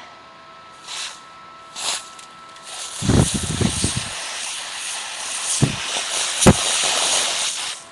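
Gas duster (canned compressed air) held upside down and spraying, so it shoots out liquid, freezing propellant: two short hisses, then one long hiss of about five seconds that cuts off near the end. A few knocks and a sharp click come partway through.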